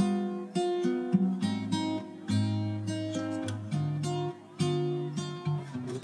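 Background music: an acoustic guitar playing a string of plucked and strummed notes that ring and fade.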